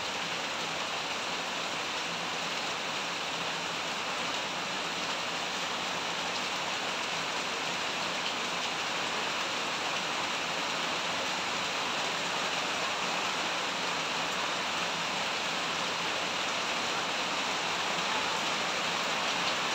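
Steady rain falling on a waterlogged yard, tree leaves and corrugated tin roofs: a constant even hiss that grows slightly louder toward the end.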